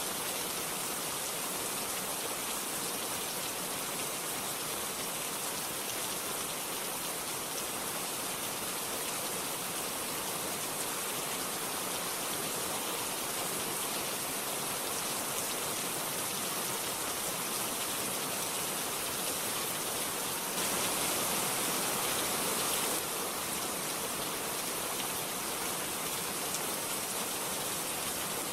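Steady rain falling, an even hiss with no thunder, briefly a little louder about twenty-one seconds in.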